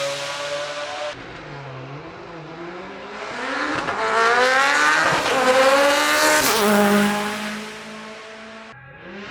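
Race car engine accelerating hard up the course, its pitch climbing in rising sweeps through the gears and loudest about five to six seconds in, then falling away as it pulls off. A low steady engine note follows and cuts off suddenly shortly before the end.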